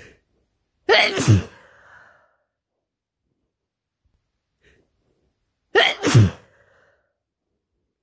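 A person sneezing twice from a head cold, two loud sneezes about five seconds apart, each coming after a faint quick breath in.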